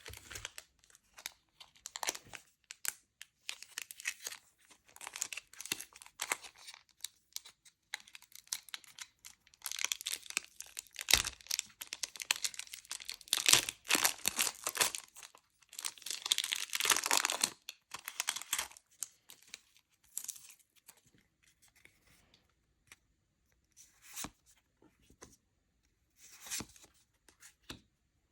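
Pokémon card packaging being torn open and crinkled: irregular tearing and crinkling, heaviest through the middle, then only a few short rustles near the end.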